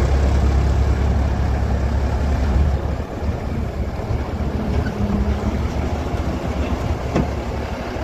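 Bobcat S220 skid steer's 75 HP Kubota diesel engine running with a steady low hum that drops sharply in level about three seconds in, then continues rougher and quieter.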